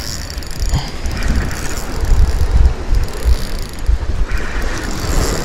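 Wind buffeting the microphone in gusts, with the whir of a spinning reel being cranked to retrieve a lure.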